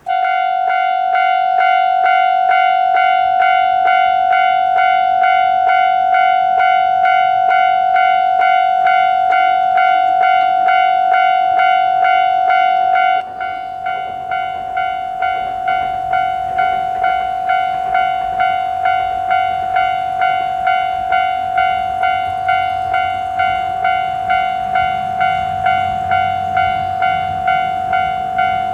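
Japanese railroad level-crossing alarm ringing its repeated 'kan-kan' tone, about two strokes a second, with a short break about 13 seconds in after which the tone carries on. A low train rumble builds beneath it in the second half.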